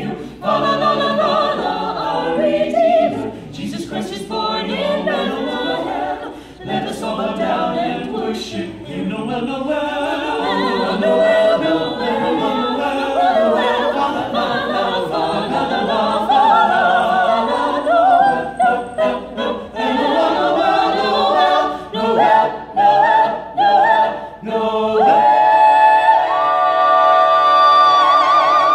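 Mixed a cappella vocal ensemble of men and women singing a Christmas carol in close harmony, ending on one long held chord over the last few seconds.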